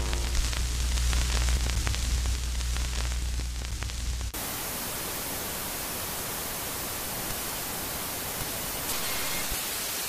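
Old-television static: a low hum with crackling for about four seconds, then a sudden switch to a steady, even hiss of white noise.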